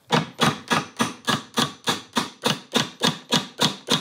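Rapid, evenly spaced hammer blows, about four a second, driving the countershaft of a Volvo M410 gearbox further forward so that it seats for a countershaft end-play check.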